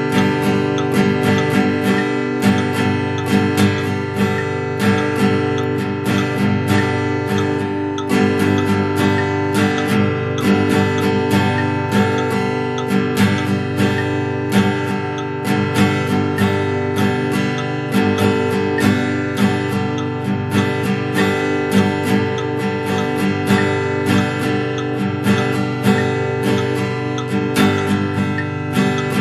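Steel-string acoustic guitar strummed with a pick in a steady, even down-and-up rhythm of about two to three strums a second, on one chord, a G, held throughout.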